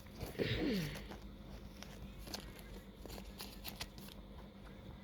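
Faint rustling and light clicks of paper and sticker packets being handled, with a short falling murmur from a voice about half a second in.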